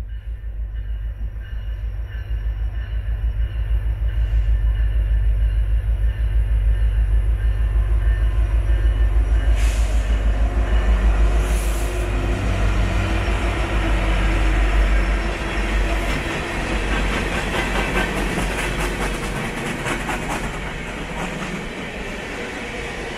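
Union Pacific diesel-electric locomotives at the head of a coal train passing close by, their engines making a loud, deep rumble that builds over the first few seconds. About two-thirds of the way through the rumble drops away, and the coal hopper cars rolling behind clatter and click over the rail joints.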